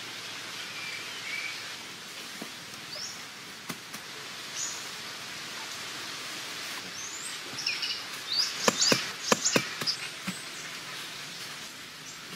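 Jungle ambience: a steady hiss of the forest with scattered short bird chirps. Around eight to ten seconds in comes a quick run of sharp clicks, the loudest sound here.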